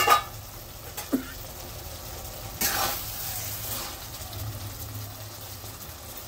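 A sharp metal clank as the pan lid is handled, then a couple of light knocks about a second in. From about halfway, a spatula scrapes and stirs through thick fish head and potato curry simmering in an aluminium kadai, with the sauce sizzling.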